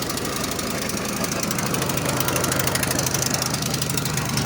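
Snowblower's small gasoline engine running steadily, with a rapid, even firing rhythm.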